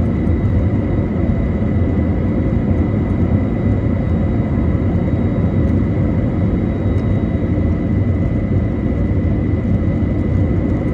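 Airbus A321neo's jet engines running steadily after takeoff: a dense, unchanging low rush of noise with a thin steady whine on top.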